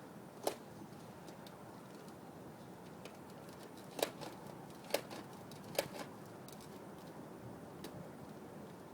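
Sharp clicks and knocks from a toy foam-dart rifle being handled and fired: one about half a second in, then three louder ones about a second apart around the middle, with a few fainter ticks between.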